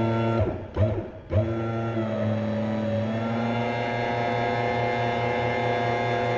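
Electric hydraulic pump of a press humming: it starts and stops twice in quick succession, then runs steadily while the punch is driven down into the deep-drawing die, its pitch settling slightly lower as it takes up the load.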